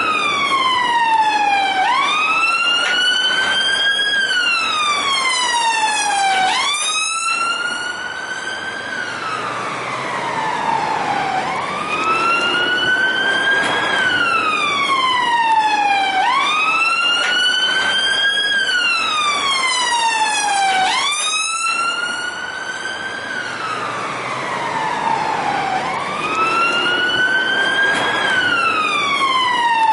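Police car siren in wail mode: a tone that sweeps up quickly, then falls slowly back down, repeating about every five seconds.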